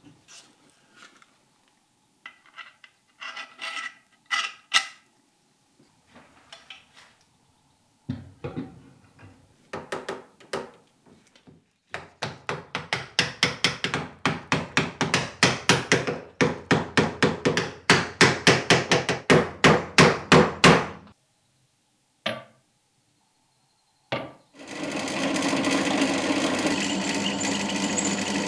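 Hammer blows in a workshop: a few scattered taps and knocks, then a long run of rapid, regular strikes, about four a second, that stops abruptly. Near the end a power tool starts and runs steadily.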